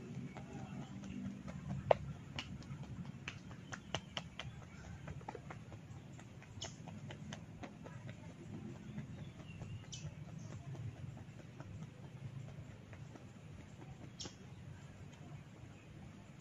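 Scattered sharp cracking clicks from hair-cracking and neck-cracking massage, with one loud crack about two seconds in and a cluster of smaller ones just after, over a low steady background.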